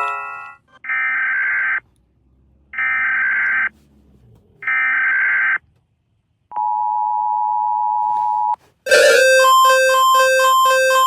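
Emergency Alert System tones: three short buzzy data bursts of the SAME header, then the steady two-note attention signal for about two seconds. About nine seconds in, a different alert starts, a loud rapid pulsing of alternating low and high beeps.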